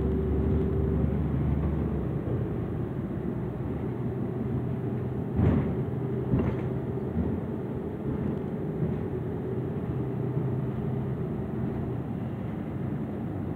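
New Flyer transit bus under way, heard from inside the cabin: a steady drone of the drivetrain and road noise, with two short clunks about a second apart near the middle.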